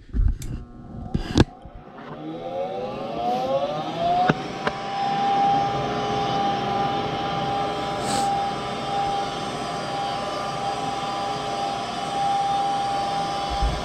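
Furnace being fired up for a test: a few clicks, then a motor spinning up with a rising whine over about two seconds that settles into a steady whine with a rush of air.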